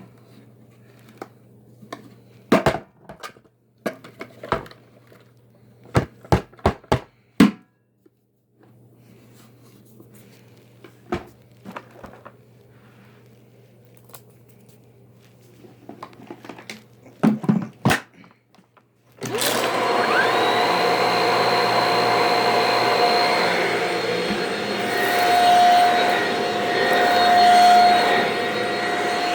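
Scattered clicks and knocks, then about two-thirds of the way through a vacuum cleaner switches on, spins up and runs steadily with a high whine.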